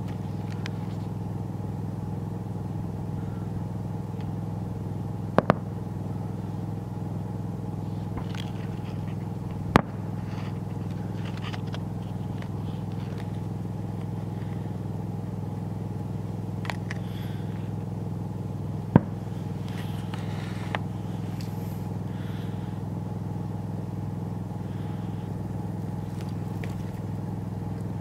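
Steady low machine hum, with a few sharp clicks about five, ten and nineteen seconds in.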